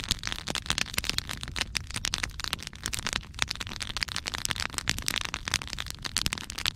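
Open wood fire of stacked logs crackling, with rapid, continuous pops and snaps.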